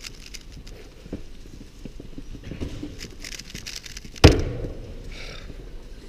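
Plastic clicking and clacking of a Gan Air SM speedcube being turned quickly by hand. About four seconds in comes one loud slap as the hands come down on the stackmat timer to stop the solve.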